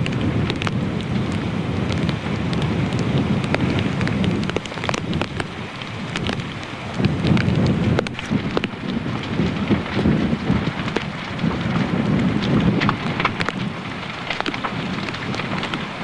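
Large fire burning: dense, irregular crackling and popping over a low, uneven rumble.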